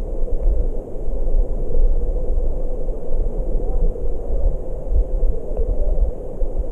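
Muffled, steady rush and low rumble of flowing stream water heard underwater, with most of the sound low and dull and little hiss.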